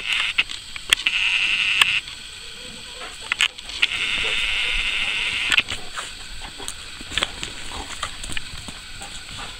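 A dog gives two long, high-pitched cries, one about a second long and one nearly two seconds, amid scattered clicks and scuffs of movement on gravel.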